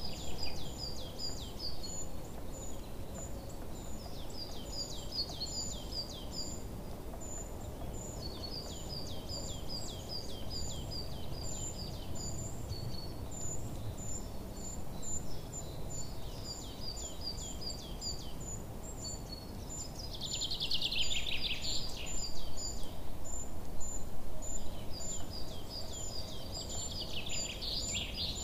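Small songbirds chirping in repeated groups of quick falling notes, with louder, faster trills about two-thirds of the way in and near the end, over a steady background hiss.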